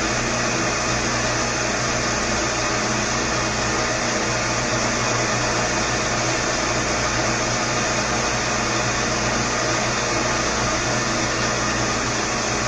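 Older milling machine running steadily while a Woodruff key cutter is fed into a 1¼-inch shaft to cut a keyseat: an even, unchanging motor hum with steady tones over a constant noise.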